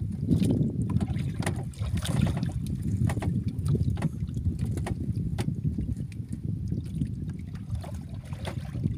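Wind noise on the microphone and water lapping against the hull of a small outrigger boat at sea, a low unsteady rumble with scattered light clicks and taps.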